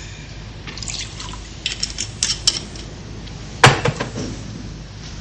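A drink poured into glasses, with several light clinks of glass and one louder clink a little past halfway.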